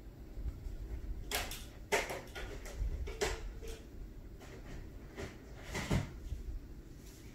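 A few soft knocks and clicks, the strongest about two seconds in and again near six seconds, over a low steady rumble of room noise.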